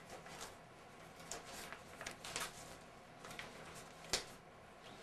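Album pages being handled and turned, several short rustles of paper, with one sharp click about four seconds in.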